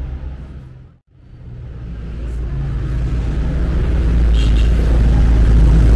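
City street ambience dominated by a low traffic rumble. It drops almost to silence about a second in, then swells steadily louder.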